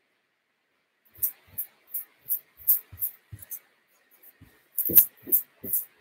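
Quick footsteps of a man doing agility-ladder drills on a carpeted floor: light steps about three a second, each a dull thud with a sharp high tick, starting about a second in. The loudest is a single sharp knock about five seconds in.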